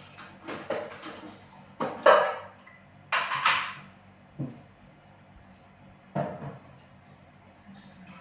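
Kitchen clatter: a string of short knocks and rattles as items are handled and set down. The loudest come about two seconds in and again around three seconds in, with fainter ones after.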